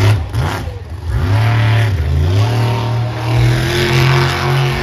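Monster truck engine revving hard. The revs fall off briefly near the start, climb back up about a second in, and hold high and steady as the truck spins on the asphalt.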